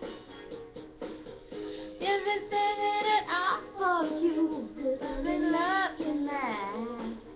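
A song: a high, young-sounding female voice sings held, wavering and gliding notes over a light instrumental backing, coming in strongly about two seconds in.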